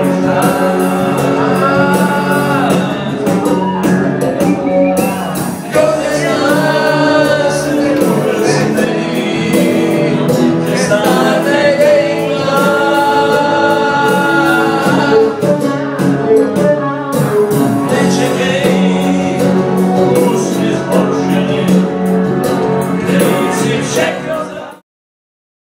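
A group of men singing together loudly, a boisterous singalong with music, which cuts off suddenly near the end.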